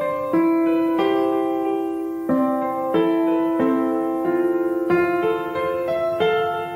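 Background music played on piano: gentle notes and chords struck every half second or so, each ringing and fading.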